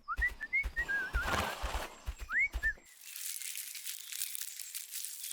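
Whistled notes, short wavering tones and quick rising glides over soft tapping, stopping about three seconds in, after which only a faint, thin high hiss remains.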